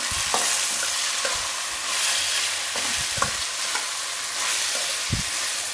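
Chopped vegetables sizzling in hot oil in a steel kadhai as a slotted spatula stirs them: a steady sizzling hiss, with a few brief scrapes and knocks of the spatula against the pan.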